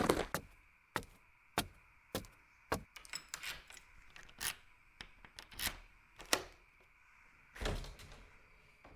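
A string of sharp knocks and taps, about a dozen spaced roughly half a second apart, over a faint steady hum.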